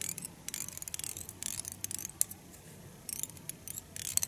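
Tying thread being wrapped and pulled tight over a clump of stiff elk hair on a fly hook, with fingers working the hair: irregular dry crackles and ticks.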